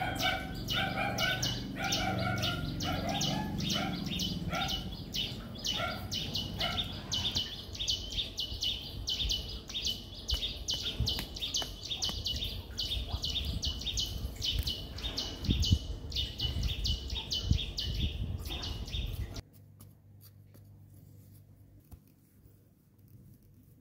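Birds chirping in a fast, steady series, with a lower repeating call over it for the first several seconds. The chirping cuts off abruptly near the end, leaving quiet.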